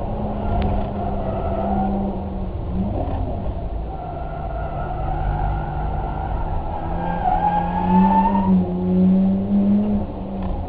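A vehicle engine running with a steady low rumble. Its pitch rises for a second or two past the middle, where it is loudest.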